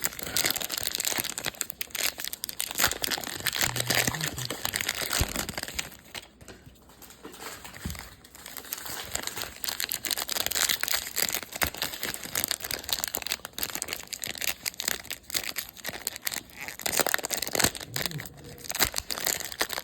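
Trading-card pack wrappers and packaging crinkling and rustling as packs are opened and cards handled, in a run of irregular crackles. It goes quieter for a couple of seconds about six seconds in.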